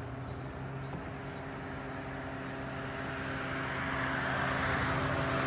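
Road traffic on a bridge: a steady engine hum, with tyre and engine noise growing louder over the last couple of seconds as a vehicle approaches.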